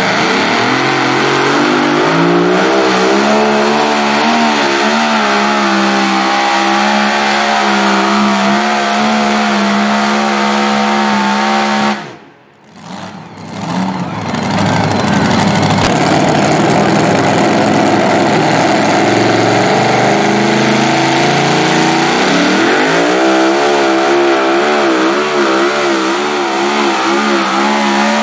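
Supercharged engine of a super modified two-wheel-drive pulling truck running hard at high revs under the load of the pulling sled, its pitch wavering. The sound drops out for about two seconds near the middle, then the engine runs again and climbs in pitch later on.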